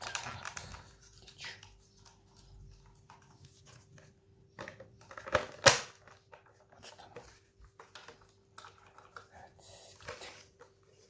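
Plastic parts of a Dyson V6 cordless vacuum being handled and fitted together: scattered light clicks and rustles, with one sharp click a little past halfway.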